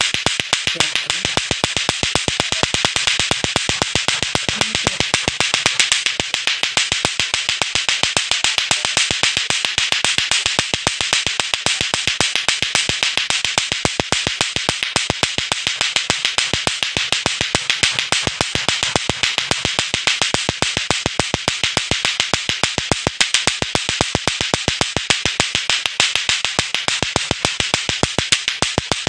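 Lato-lato clackers: two hard plastic balls on a string struck together in a fast, steady, unbroken run of loud clacks, swung in the full up-and-down arc.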